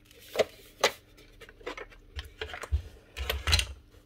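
Plastic parts of a Milwaukee M18CV cordless vacuum being handled and pulled apart: a string of sharp clicks and light knocks, with dull bumps from about two seconds in as the dust canister and housing are shifted about.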